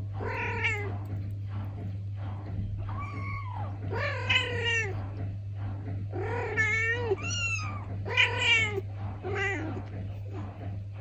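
Thai (traditional Siamese) kitten meowing again and again: about seven high-pitched meows, each rising and falling in pitch, with short gaps between them.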